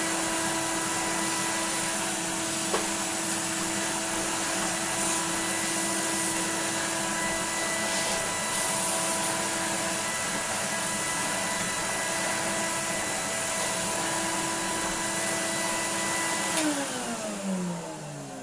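1988 Numatic Henry HVR200 vacuum cleaner running steadily on freshly fitted carbon brushes while its floor tool is pushed over a rug. Near the end it is switched off, and the motor's whine falls in pitch as it spins down.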